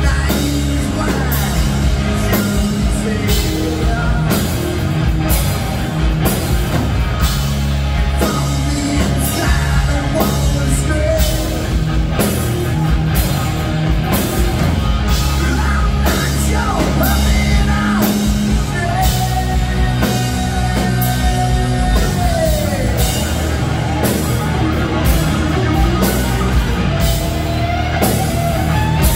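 Live rock band playing loudly: electric guitars, bass guitar and a drum kit keeping a regular beat.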